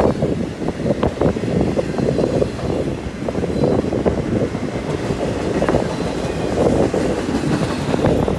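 Intermodal freight cars, trailers on flatcars and double-stack container well cars, rolling past: a loud, steady rumble of steel wheels on rail with a quick, irregular run of clicks and clacks.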